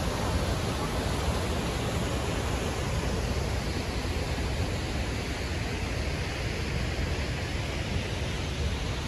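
Steady, even rushing of a large waterfall, Athirappilly Falls, heard across the valley, with no change in level.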